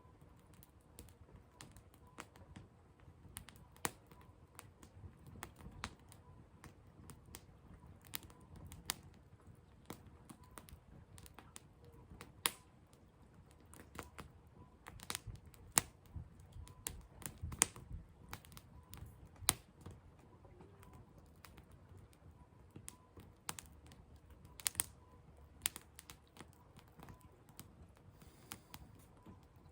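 Burning firewood crackling, with irregular sharp pops and snaps, a few of them loud, over a low steady rush of the fire.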